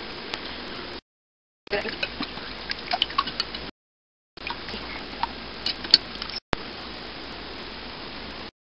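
Eggs being beaten by hand in a mixing bowl: quick, irregular clinks of the utensil against the bowl with a wet slosh, then a steadier stretch without clinks near the end. The sound drops out completely three times.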